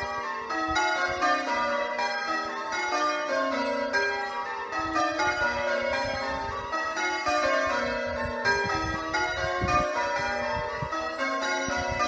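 Ring of eight church bells, the back six cast by Warner in 1913 and two newer trebles, being change-rung: a steady, continuous stream of overlapping bell strikes at different pitches, each ringing on.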